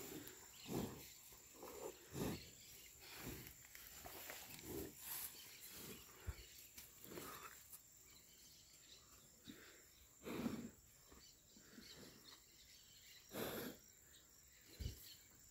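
Faint, irregular short rustles and puffs from cattle at close range, about one a second, with two louder puffs about ten and thirteen seconds in.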